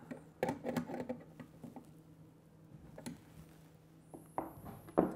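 Light, scattered clicks and taps of a 19 mm spanner working a brass nut onto a lock cylinder, gently tightening it, over a faint low hum.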